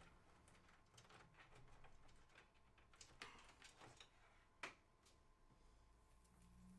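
Near silence with faint clicks and rustles of cables being handled and pushed through the cable slots of a PC case by the power supply, with one sharper click a little past the middle.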